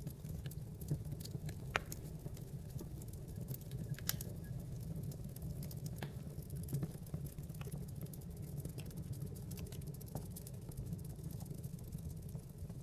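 Wood fire burning in a fireplace: a steady low rumble of flames with irregular sharp crackles and pops from the logs, the loudest pops about 2 and 4 seconds in.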